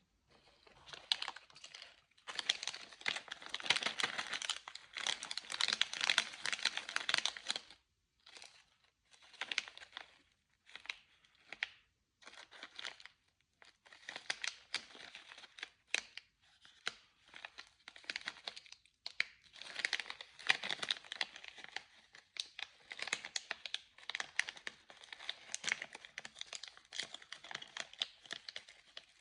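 Plastic candy wrapper crinkling and tearing as candy is unwrapped by hand, in irregular runs of dense crackling with short pauses between.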